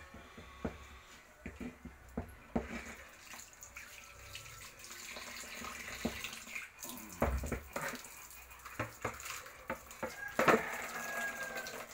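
Hands mixing moistened chicken and pig feed in a metal basin: wet mash squelching and grain rustling, with irregular knocks and scrapes against the basin.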